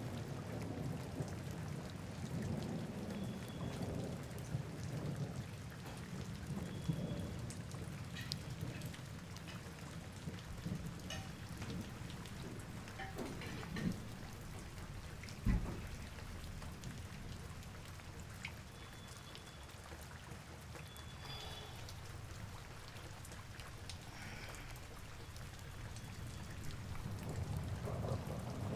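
Steady rain with a low rumble of thunder, with scattered faint clicks and one sharp knock a little past halfway.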